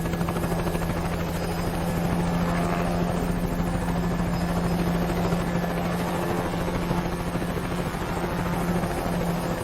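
Helicopter sound effect: rapid, even rotor chop over a steady low engine hum.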